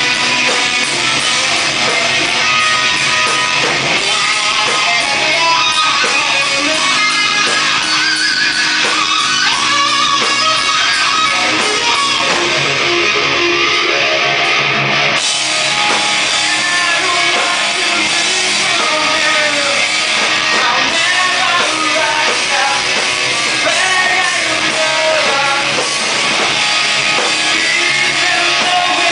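Live rock band playing loud, guitar-driven rock, with a voice singing over it.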